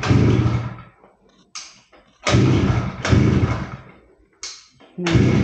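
Small petrol grass-cutter engine being pull-started by its recoil rope about four times in quick succession, cranking briefly on each pull but not catching: the engine won't start even though it still has fuel.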